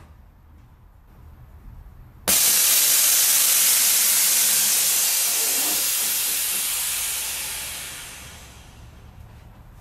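Air-ride suspension dumping air to lower the truck: a sudden loud hiss of escaping air starts about two seconds in and slowly fades away over about six seconds as the body settles down over the wheels.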